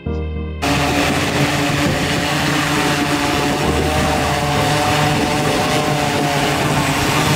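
Mugin EV350 electric VTOL drone's lift motors and propellers running at power as it hovers low, a loud rushing prop wash with a steady whine. It cuts in suddenly about half a second in.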